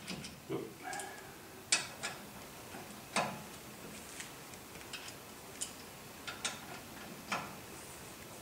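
Irregular metallic clicks and clinks of a hand wrench turning the mounting bolts of a C3 Corvette front brake caliper, a dozen or so short taps spread unevenly as the wrench is repositioned stroke by stroke.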